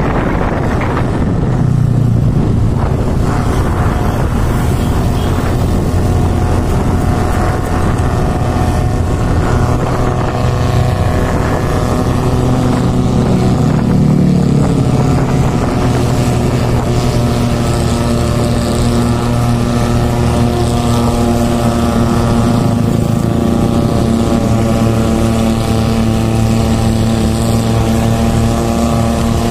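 Motorcycle engine running steadily while riding, heard from on the bike, its note shifting briefly about halfway through.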